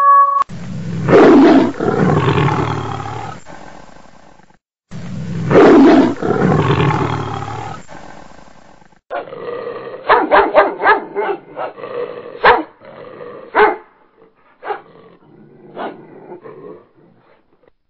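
A big cat's roar, sounded twice the same way, each call falling and fading over a few seconds. Then a dog yelps and barks in short, rapid bursts as it is seized by a leopard.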